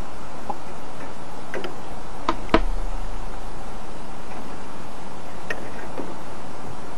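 A few sharp clicks and taps as a baster tip knocks against the metal drip pan while fat is siphoned off. The loudest pair comes about two and a half seconds in and a couple more follow near the end, over a steady hiss.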